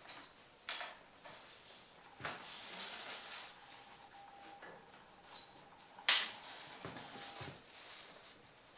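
Handling noise of a braided towline being threaded through the loop of a bike antenna at a mountain bike's head tube: rope rustling and rubbing, with scattered light knocks and one sharp click about six seconds in.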